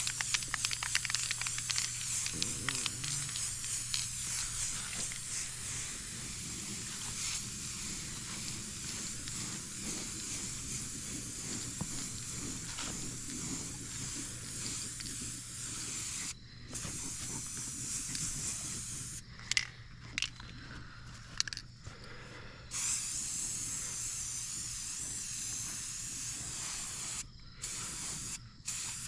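Aerosol spray paint can spraying in long steady hissing passes. It stops briefly about two-thirds of the way through, gives a few short bursts, then runs again and cuts off near the end.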